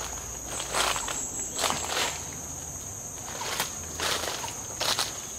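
Footsteps crunching through dry leaf litter, about one step a second, over a steady high-pitched drone of forest insects.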